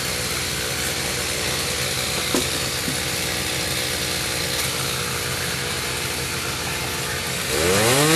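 Chainsaw engine running steadily, then revved up to full throttle about seven and a half seconds in, rising sharply in pitch and getting louder.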